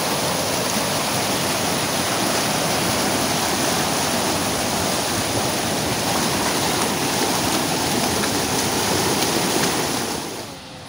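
Muddy river water rushing and churning over boulders in rapids: a steady, loud roar that drops away shortly before the end.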